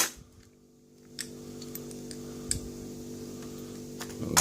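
A sharp click, then a few faint, scattered light clicks from small metal lock parts being handled during disassembly, over a steady low hum.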